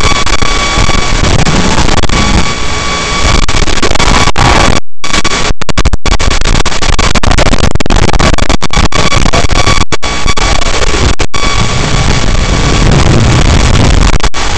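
Loud steady static hiss with a thin high whine running under it, broken by several sudden brief dropouts, typical of the audio channel of an analog wireless video link.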